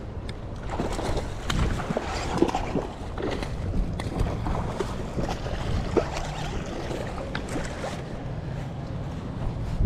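A hooked fish being fought in on a baitcasting rod at the bank: water splashing irregularly and scattered clicks, over a steady low wind rumble on the microphone.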